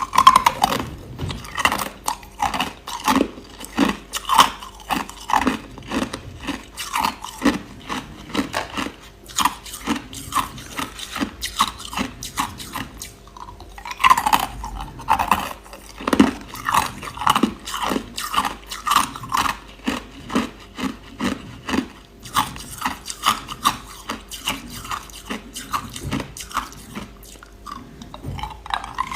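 A person chewing hard, clear crushed ice close to the microphone: rapid, sharp crunches several times a second, in runs with short lulls between them.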